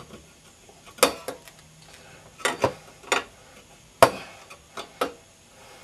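Irregular sharp metallic clanks and knocks, about half a dozen, from metal parts being handled and knocked together while a Simson exhaust and header pipe are fitted to a Puch E50 moped engine.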